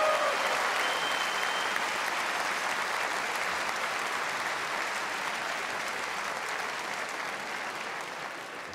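Arena crowd applauding, the clapping steady at first and slowly dying down.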